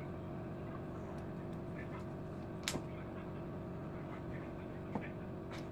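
Steady low background hum of a waiting room, with three faint short clicks: one near the middle and two close together near the end.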